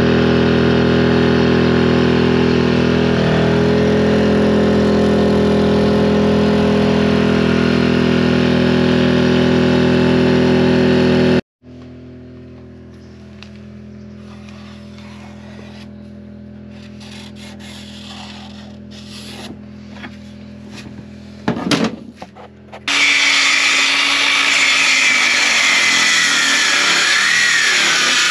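EcoFlow Smart Generator's petrol engine running at a steady speed, stopping abruptly about 11 seconds in. A quieter steady hum follows, with a few light knocks. Near the end a cordless DeWalt circular saw starts and rips along a plank, its high whine sinking a little under load.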